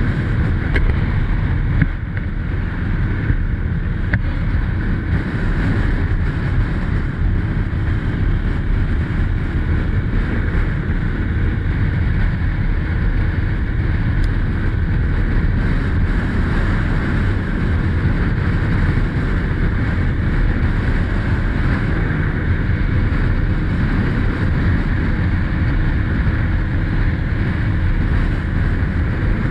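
Steady wind noise buffeting the microphone while riding, over the running engine of a 2021 SSR XF250 dirt bike.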